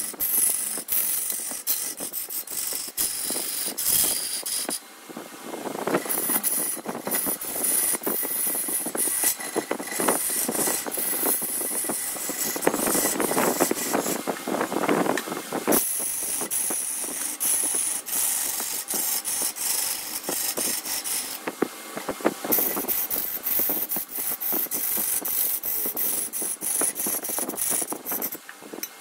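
Wood lathe turning, with a chisel cutting into the spinning wood: a dense rough scraping full of rapid ticks over a high hiss, which swells and eases as the cut goes deeper or lighter.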